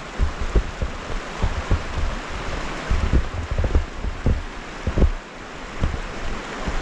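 Wind buffeting the microphone in irregular low gusts and thumps, over a steady rushing hiss.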